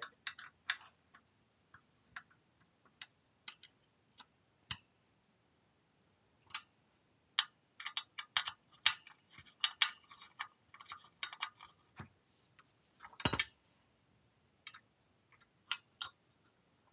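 Faint, irregular metallic clicks and clinks of an Allen wrench turning steel bolts into the steel frame of a motorcycle lift; a few ring briefly, and one knock about 13 seconds in is a little louder.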